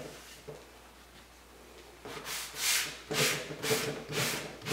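Sanding block rubbed back and forth along the edges of a chalk-painted wooden cabinet door, about two scratchy strokes a second starting about two seconds in, wearing through the paint to distress it.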